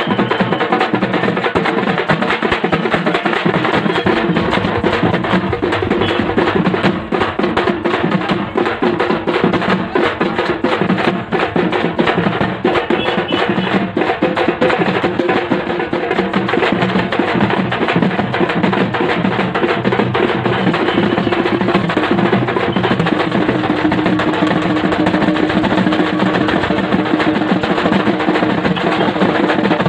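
A group of large drums beaten with sticks, playing a fast, dense rhythm loud and without a break. A steady held note sounds over the drumming in the last part.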